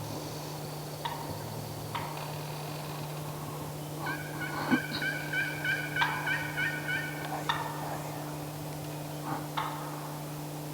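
Wild turkey gobbler gobbling, a rattling call of about three seconds starting some four seconds in, with a few sharp clicks before and after.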